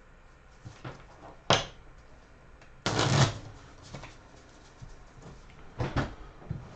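Cards being dealt and handled on a wooden tabletop: a few short brushing snaps, with a longer rustle about three seconds in.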